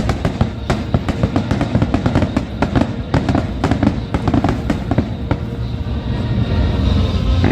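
Fireworks display: rapid volleys of bangs and crackles, thick for the first five seconds or so and then thinning out, with music underneath.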